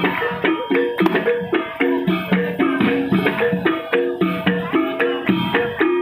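Javanese gamelan music: a quick, even beat of struck, pitched metal notes repeating a short stepping melody, with drumming.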